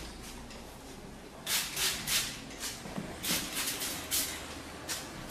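Vinyl shampoo cape rustling in a series of short swishes, about seven of them, starting about a second and a half in.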